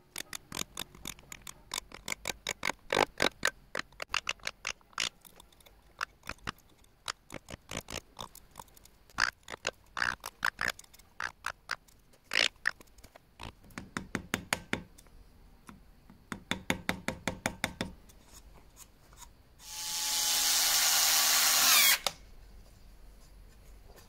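Hand carving tool cutting into a wooden handle blank: a long run of short crisp cuts, about three to four a second, coming in bursts. Near the end a small electric tool runs for about two seconds with a steady whine, then stops suddenly.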